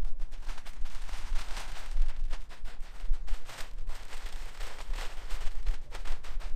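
Wind buffeting the microphone with a steady low rumble. Irregular crackling of plastic silage sheeting being pulled back off the clamp rides over it.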